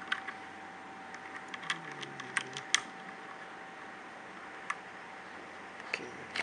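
Scattered, irregular clacks of keys being pressed on a mechanical keyboard with red linear switches, about ten in all, most of them between one and three seconds in, over a faint steady whine.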